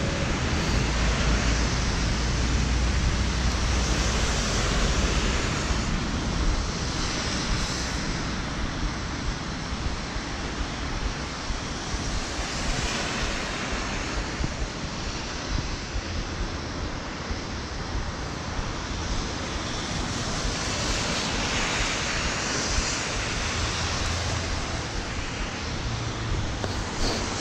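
Rainy city street ambience: a steady hiss of rain and vehicle tyres on wet roads, with a low rumble from wind on the microphone during the first few seconds.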